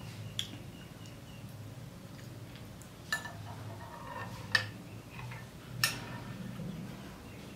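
Metal spoon clicking against a yogurt cup while strawberry yogurt is scooped and eaten: about four light, separate clicks, the last two the loudest, over a low steady background hum.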